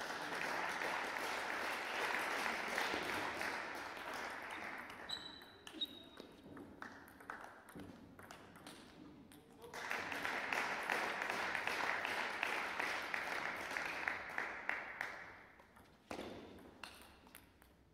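Stretches of clapping in a large hall, the first fading out over the opening few seconds and the second from about ten to fifteen seconds in, with the sharp clicks of a celluloid table tennis ball striking bats and table in between and near the end.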